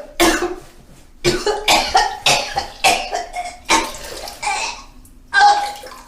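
A person retching and vomiting: a quick series of about ten short, wet heaves with gagging voice in them, coming roughly every half second.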